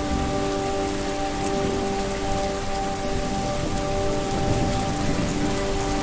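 Steady rain falling, an even hiss without pauses, with soft held notes of ambient music underneath that fade a little midway and swell back.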